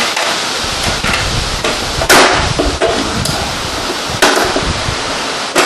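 Knocks and clunks of outboard motor parts being handled and set down, the loudest about two seconds in, over a low handling rumble.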